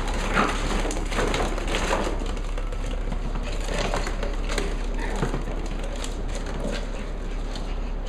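Plastic ball-pit balls clattering and rustling as a Cavalier King Charles spaniel puppy burrows through them: a jumble of short, irregular knocks over a steady low hum.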